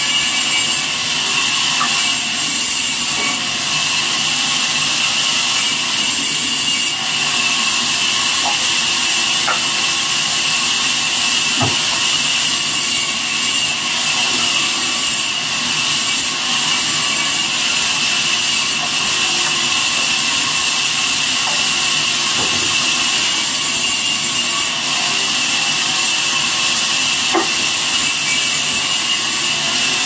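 A vertical band saw cutting rain tree wood, a steady high hiss that runs without a break. There are a few light knocks as the pieces are handled.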